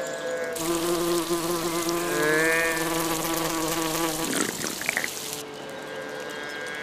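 A cartoon insect's wings buzzing, a pitched drone that bends up and down in pitch, over the steady splash of water pouring from a fountain spout. The water sound and the buzz cut out together a little after two-thirds of the way through, just after a quick swoop in pitch.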